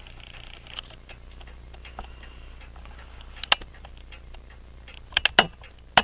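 French crystal regulator clock ticking steadily, its open escapement with jewelled pallets beating in beat, with a few louder sharp clicks about three and a half seconds in and a cluster near the end.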